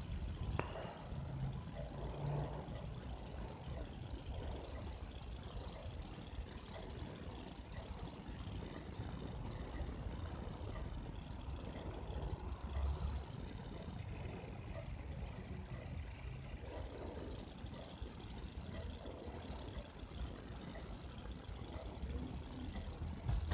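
Faint steady low rumble, engine-like, with a few soft clicks over it.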